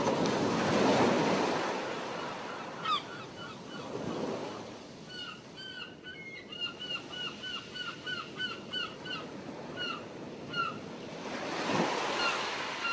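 Sea waves washing in and swelling every few seconds, with a bird calling in a rapid series of short, falling calls through the middle.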